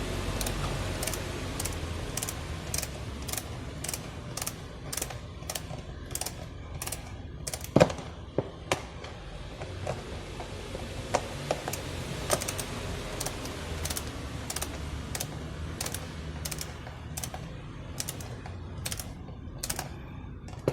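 Regular mechanical clicking, about two clicks a second, with a few louder knocks about eight and twelve seconds in.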